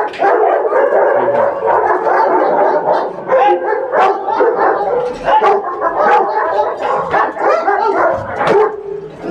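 Several dogs barking and yipping at once, a continuous overlapping chorus of barks.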